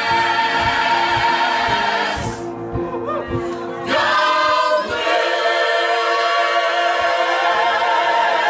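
Many voices singing together in long held notes, with a short break about two and a half seconds in before the singing picks up again.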